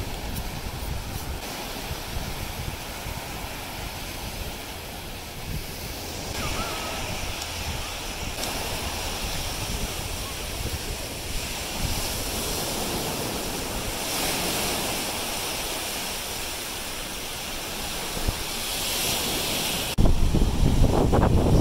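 Small surf washing onto a sandy beach, with wind on the microphone. Near the end the wind buffeting on the microphone suddenly becomes much louder.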